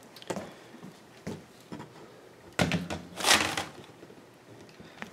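Handling noise from a handheld camera being moved about: a few light knocks, then a louder scraping rustle lasting about a second near the middle.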